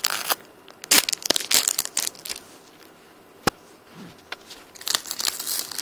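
Wrapper of a Match Attax trading-card pack being torn open and crinkled by hand, in irregular crackles, with a lull in the middle and one sharp click about three and a half seconds in.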